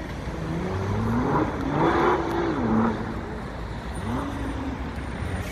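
Car engine accelerating hard, its pitch climbing through the revs and loudest about two seconds in, then dropping away as it passes. A second, shorter rise in revs comes about four seconds in.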